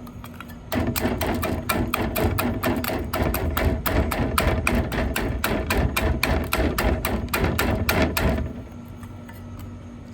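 Rapid, repeated hard strikes chipping at a block of ice holding frozen fidget toys, several blows a second for about eight seconds, stopping near the end.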